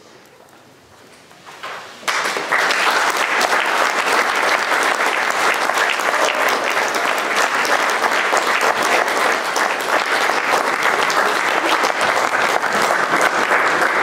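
Audience applause that breaks out suddenly about two seconds in, after a brief hush at the end of a wind band's piece, and then keeps going steadily.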